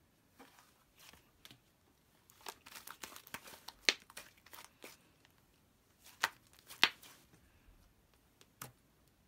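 Red butter slime being stretched, folded and squished by hand, giving irregular sticky clicks and pops, loudest about four seconds in and again near seven seconds.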